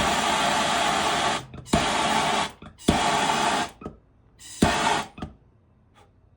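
Blowtorch fired in four short bursts, each opening with a sharp click and a hissing flame, shrinking heat-shrink tubing onto a rope end.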